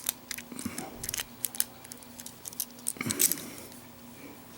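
Lock pick working inside a brass padlock: a quick, irregular run of small metallic clicks and scrapes as the pins are raked, with a louder cluster of clicks about three seconds in.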